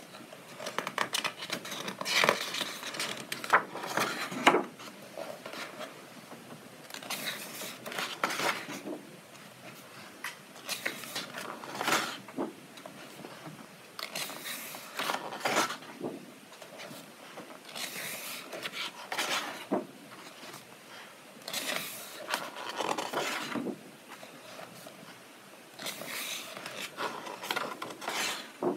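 Pages of a paperback coloring book's sturdy medium-weight paper being turned by hand, a papery swish every one to three seconds, often in quick pairs.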